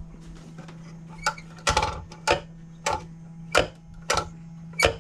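Small electric bilge pump running with a steady low hum, switched on while testing the boat's pumps. Over it come seven sharp clicks or knocks, about one every two-thirds of a second.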